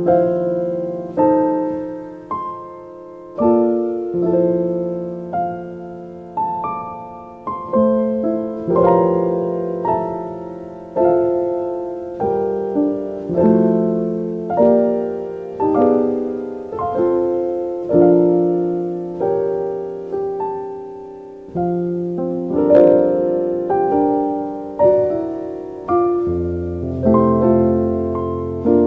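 Slow, gentle piano music: notes and chords struck roughly once a second, each ringing out and fading before the next.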